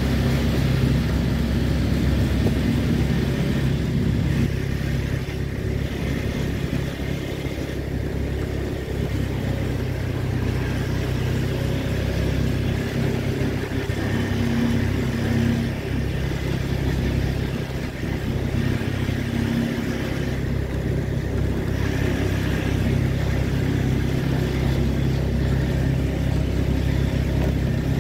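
A vehicle engine running steadily at low revs: a low, even hum with a haze of road noise.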